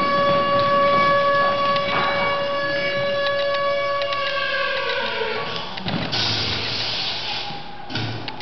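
A long held whistle-like tone with several overtones, a sound effect in the dance track played over speakers, slides down in pitch about four seconds in and fades out; a hiss of noise follows about six seconds in, then a sharp tap near the end.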